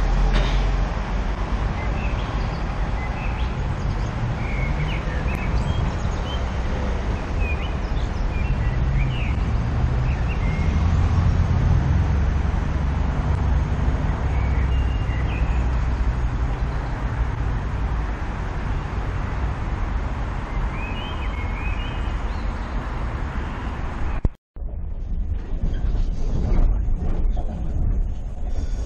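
Outdoor city ambience: a steady low street rumble with short bird chirps now and then. About 24 seconds in it cuts abruptly to the steady running noise inside a moving ÖBB Railjet train carriage.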